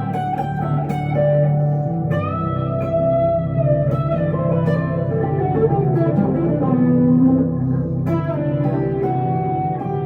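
Electric guitar, a 1962 Gibson Les Paul Custom played through a Two Rock Emerald Pro amp, playing a slow melodic line of sustained notes, with fresh notes struck about two seconds in and near the end and a note sliding down in pitch just past the middle.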